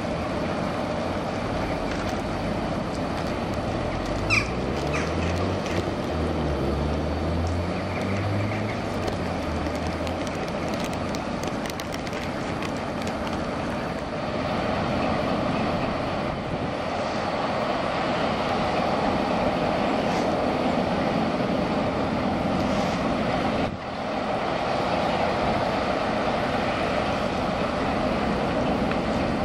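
Class 60 diesel locomotives running in a rail yard: a steady mechanical drone, with an engine note stepping up and down a few seconds in and a brief high squeal about four seconds in. After a break about 24 seconds in, a heavier steady drone of a locomotive working a loaded hopper train.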